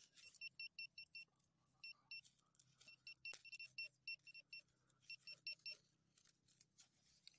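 Metal detector's handheld pinpointer beeping in quick runs of short high beeps, about six a second, breaking off and starting again four times as it is moved through the soil and grass: it is signalling metal close by.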